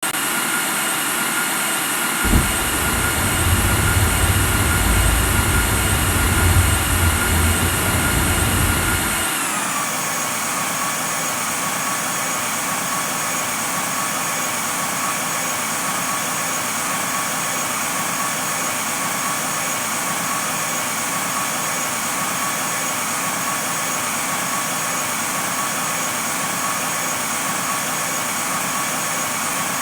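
Jet aircraft engines on landing: a steady high whine with a heavy low rumble that sets in suddenly about two seconds in. About nine seconds in the rumble stops and the whine drops in pitch, then holds steady as the engines settle after landing.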